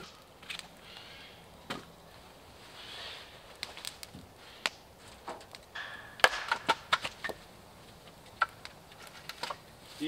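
Hatchet strikes splitting a small log of firewood: a cluster of sharp knocks about six to seven and a half seconds in, the first one the loudest. A wood campfire crackles with scattered snaps throughout.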